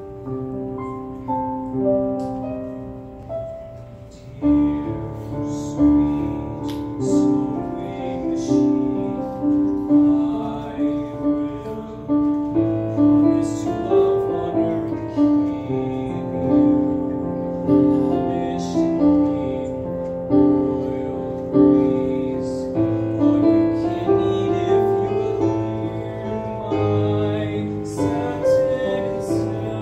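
Piano playing the accompaniment to a musical-theatre song, a new chord about every second and a half.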